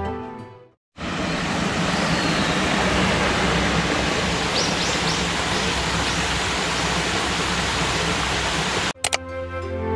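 Small cascading garden waterfall splashing steadily over mossy rocks, with a few short high chirps about halfway through. Background music fades out at the start and comes back near the end.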